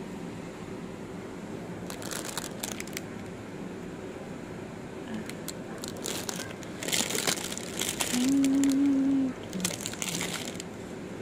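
Plastic packaging crinkling in several short bursts of handling, the longest about seven seconds in. Near the end a person hums one steady note for about a second.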